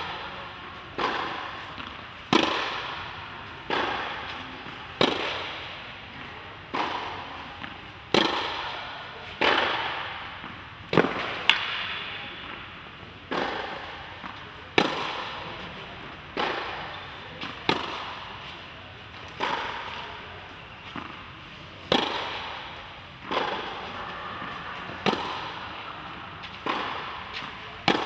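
Tennis balls struck hard with rackets in a practice drill: sharp pops about every second and a half, each followed by a short echo in the domed indoor tennis hall.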